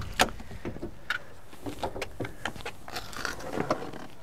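Car door latch clicking open on a 1960s Mercury, followed by scattered light clicks, knocks and rustling as someone climbs into the driver's seat.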